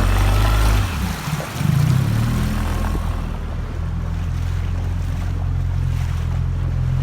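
Mercury 9.9 outboard motor running under an inflatable boat, a steady low drone whose pitch shifts over the first couple of seconds before settling. Wind and water hiss ride over it early on, then die down.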